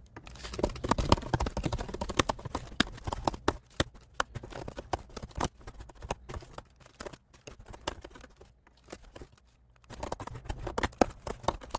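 Typing on a computer keyboard: rapid, irregular key clicks, with a pause of about two seconds near the end before the typing resumes.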